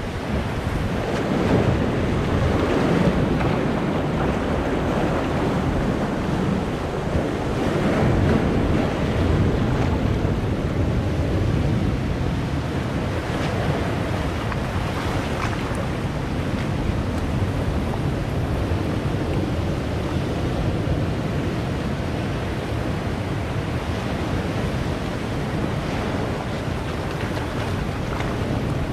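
Sea waves breaking and washing in among large boulders on a rocky shore: a continuous rush of surf that swells louder now and then as a wave comes in.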